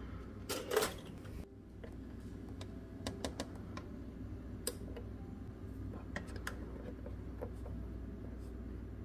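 Scattered light clicks and taps over a steady low hum, with two louder, noisier bursts about half a second in.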